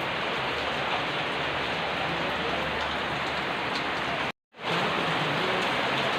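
Steady rain falling and pattering on surfaces. It cuts out to complete silence for a moment about four seconds in, then resumes.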